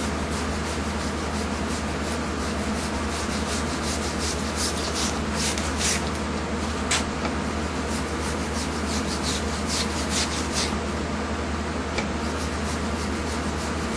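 Kitchen knife scraping the spines off blowfish (fugu) skin in many short, irregular rasping strokes.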